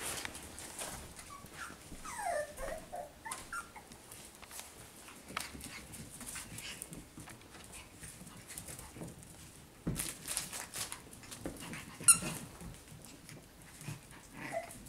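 A litter of young puppies at play, giving short high yips and whines, with scattered knocks. One sharp, high-pitched squeal about twelve seconds in is the loudest sound.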